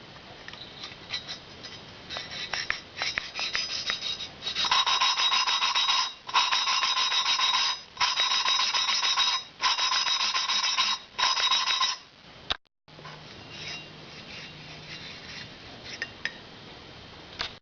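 A poppet valve being hand-lapped into its seat in a Harley Sportster Evolution cylinder head with grinding compound: a gritty rasp of valve face against seat. It comes in four strokes of about a second and a half each, with short pauses between, after a few seconds of light scratching.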